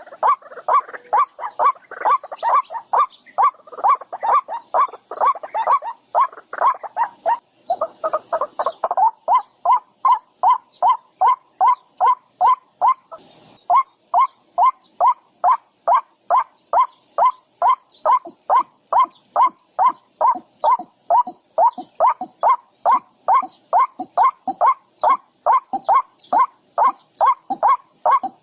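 An animal calling in a fast, even series of short notes, about two or three a second, with a burst of overlapping calls in the first several seconds.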